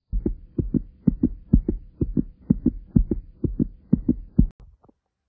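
Heartbeat sound effect: paired thumps about twice a second over a faint steady hum, ending shortly before the end.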